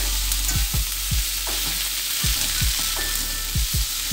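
Chopped salted mustard greens with garlic and shallots sizzling in hot oil in a metal wok, with a steady hiss. A metal spatula scrapes and turns them against the wok in about seven irregular strokes.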